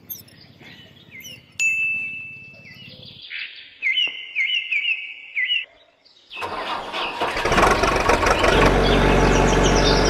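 Small birds chirp in short repeated calls. About six seconds in, a vehicle engine starts and then runs steadily and louder, with the chirping still faintly above it.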